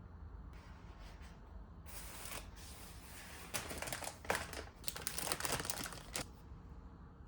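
Plastic crinkling and rustling in quick bursts, from about two seconds in until about six seconds, the kind of sound made while handling grocery packaging.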